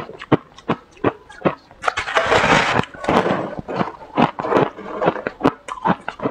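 Powdery freezer frost crunching as it is bitten off and chewed: a run of sharp crunches, with a longer, denser crunch about two seconds in.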